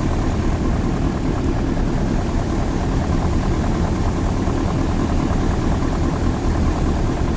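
Heavy construction machine's diesel engine running steadily.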